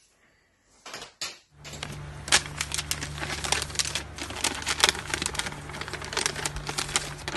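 A folded sheet of paper being unfolded by hand, crinkling and crackling in quick irregular clicks over a low steady hum. It begins about a second and a half in, after a near-silent start and a couple of short knocks.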